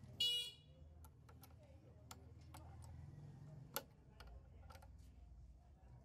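Small metal clicks and taps as a fitting is worked onto the shaft of an electric motor by hand, over a low steady hum. A brief high squeak right at the start is the loudest sound.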